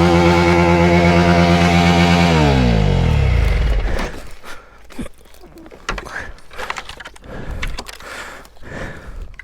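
Honda CRF300L Rally's single-cylinder engine revving high and held, then winding down in pitch and cutting out about four seconds in. After that, scattered knocks and scrapes.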